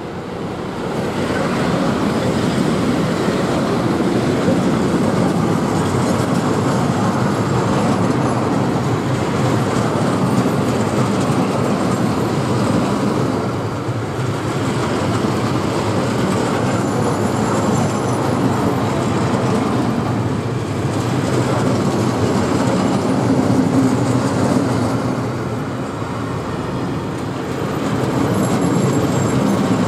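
Freight train hauled by an ET41 electric locomotive passing close by: the sound swells in the first second or two as the locomotive arrives, then the open wagons roll past with a loud, steady rumble and clatter of wheels on the rails. Faint high wheel squeals come through now and then.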